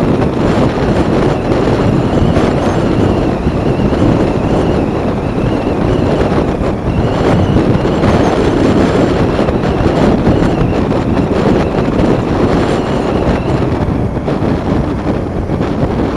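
Loud, steady rush of wind and road noise from a motorbike riding along at speed.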